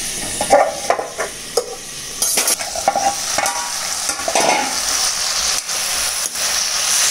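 Tomatoes, onions and green chillies sizzling in oil in a frying pan, with a steady hiss. A metal spatula scrapes and clinks against the pan as the vegetables are stirred, several ringing knocks in the first few seconds.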